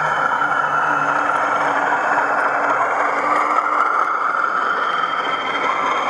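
O gauge model Class 40 diesel locomotive with a Loksound XL v4.0 DCC sound decoder running past, its speaker playing a diesel engine sound. The deep engine hum fades about a second in as the model moves away, leaving a steady whirring and rumble of wheels on the track.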